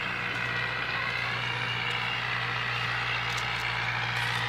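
New Holland Fiat 640 tractor's four-cylinder diesel engine running steadily under load as it pulls a disc harrow through wet soil.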